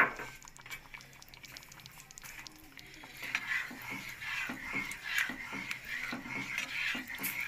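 A spoon stirring thin simmering soup in a metal pan, the liquid sloshing and the spoon tapping the pan in quick small clicks, busier from about three seconds in. A sharp knock at the very start.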